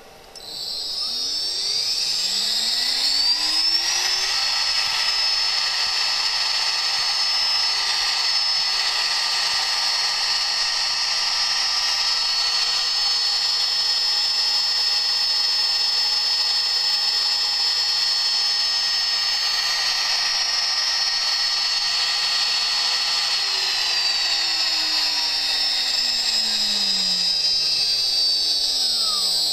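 CNC spindle motor run from a 1500 W variable-frequency drive: it spins up with a rising whine over the first four seconds, runs at a steady high-pitched whine, then winds down from about 23 seconds in and stops just before the end.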